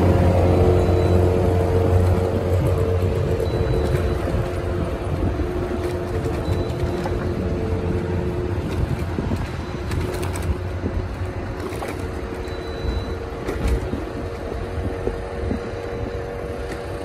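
Motor traffic heard from a vehicle moving along a city street: continuous engine and road noise. A close engine, loudest at the start, fades over the first couple of seconds as an auto-rickshaw (tuk-tuk) passes alongside.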